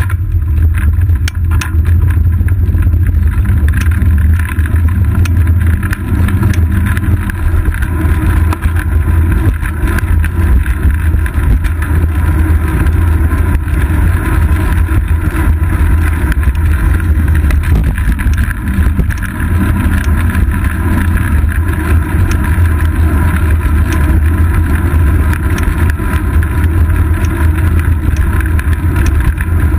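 Steady, heavy low rumble of wind buffeting and road vibration picked up by a GoPro Hero 2 mounted on a moving road bicycle's seat post.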